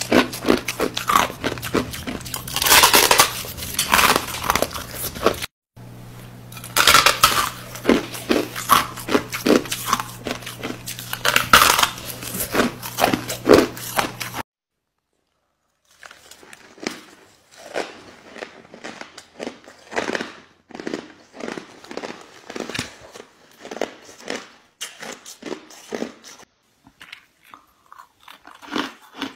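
Close-up crunching and crackling of packed crushed ice being bitten and chewed, with a steady low hum under it. After a short silent break about halfway, quieter crunching and chewing of frozen ice balls.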